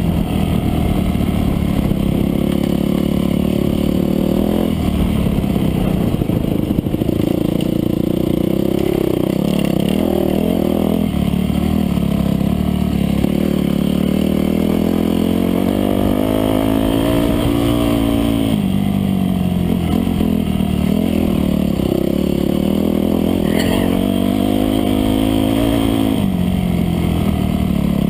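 Off-road dirt bike engine being ridden hard, its revs climbing and dropping over and over with throttle and gear changes, reaching its highest pitch about halfway through. Heard close from the rider's own camera on the bike.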